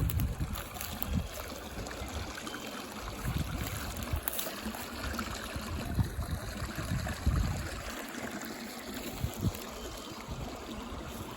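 Creek running high with snowmelt, water bubbling rapidly over rocks in a steady rush, with a few brief low rumbles.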